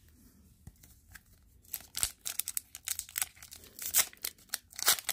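A hockey card pack's wrapper being torn open and crinkled. A few faint clicks come first, then from about two seconds in a dense run of short, sharp crinkling and tearing noises.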